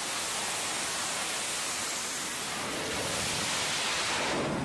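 F/A-18 fighter's jet engines at full power during a steam catapult launch: a steady, even rushing hiss with no distinct tones.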